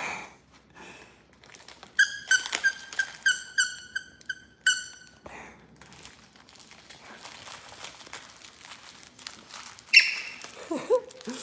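Labrador puppies tugging at a plush toy: a quick run of about nine short high squeaks about two seconds in, then soft scuffling and rustling. A louder sharp sound comes near the end.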